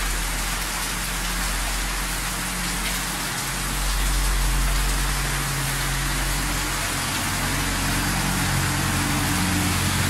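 Heavy rain pouring down, an even, steady hiss, with a low hum underneath that grows stronger about four seconds in.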